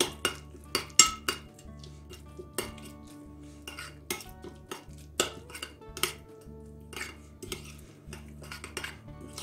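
A metal spoon stirring thick sour cream sauce in a ceramic bowl, clinking and scraping against the sides in irregular clicks.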